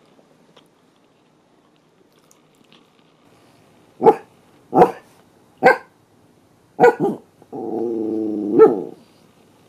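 Bichon Frise dog barking and growling: after a few quiet seconds come five sharp barks, the last two close together, then a growl of about a second and a half with one more bark in it near the end.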